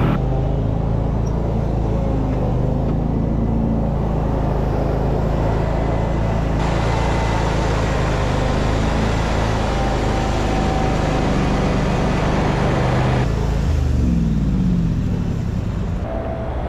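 Ride-on front-deck mower engine running steadily, its speed falling about fourteen seconds in.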